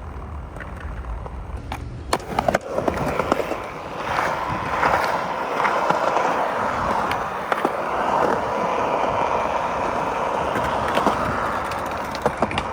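Skateboard wheels rolling over pavement, with sharp clacks of the board popping and landing about two seconds in and again near the end.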